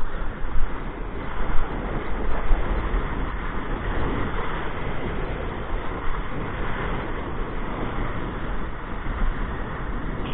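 Wind buffeting the camera microphone, gusting hardest in the first couple of seconds, over the rush and hiss of spray from a kiteboard planing across choppy water.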